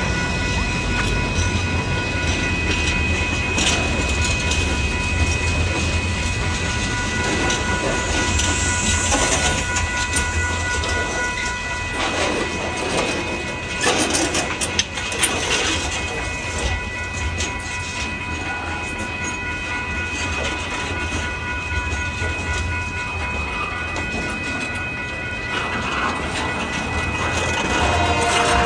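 Freight train of tank cars and covered hoppers rolling past, with a low rumble and steel wheels clacking over rail joints. A grade-crossing bell rings on and on above it.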